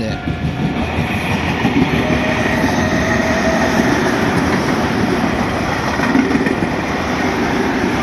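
Tobu Tojo Line electric commuter train passing at close range over a level crossing: steady running noise of wheels on the rails, with some clickety-clack.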